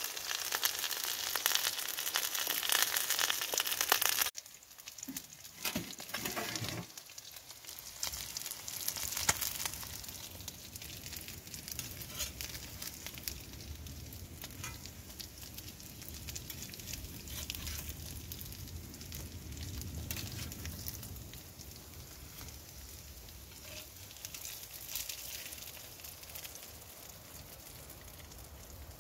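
Sausages and eggs sizzling in a wrought-iron skillet, a loud frying hiss that cuts off suddenly about four seconds in. After that, quieter small clicks and scrapes of a knife moving the cooked food onto a plate, over a faint sizzle.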